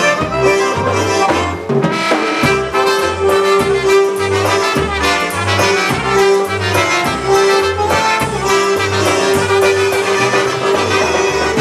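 Live polka band playing: chromatic concertina and piano accordion carrying the tune over drums and bass, with a steady oom-pah bass beat.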